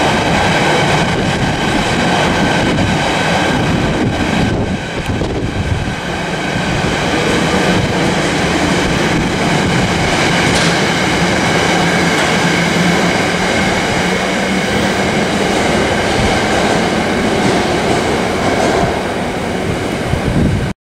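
Container freight train running through close by, its wagons' wheels rumbling and clattering steadily on the rails, with a few faint held tones over the noise. The sound cuts off suddenly near the end.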